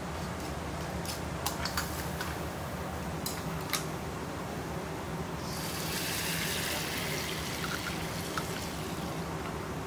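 Kitchen sounds: a few light clicks and knocks over a steady low hum. About halfway through comes a hiss of running water that lasts about two seconds.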